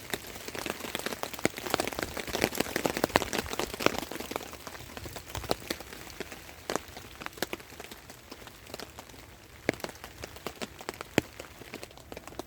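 Rain falling, with many separate drops landing as sharp ticks over a steady hiss, heaviest in the first few seconds and then thinning out.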